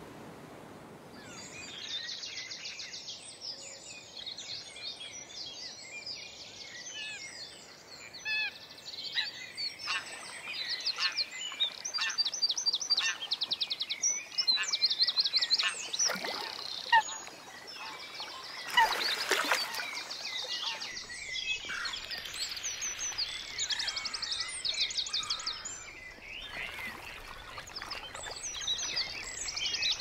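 Several wild birds singing and calling over one another: a busy chorus of rapid high trills and chirps. A short, louder burst of noise comes a little past the middle.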